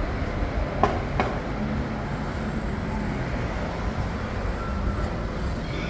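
City street ambience: a steady low rumble of traffic, with two short sharp knocks about a second in.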